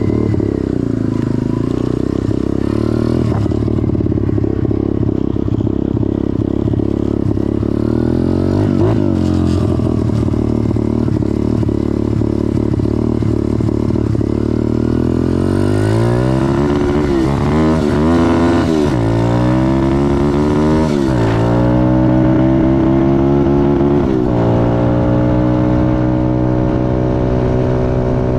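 Pit bike's single-cylinder engine putters along at low revs for about fifteen seconds, then revs out through the gears, its pitch climbing and dropping back at each of several shifts, and runs steadily at high revs near the end. The owner blames a carburetor problem for holding its top speed to 49 mph.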